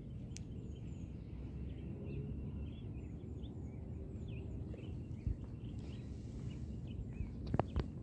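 Outdoor ambience: a steady low rumble with faint bird chirps and thin, high, falling whistled notes scattered throughout. A few sharp clicks come near the end.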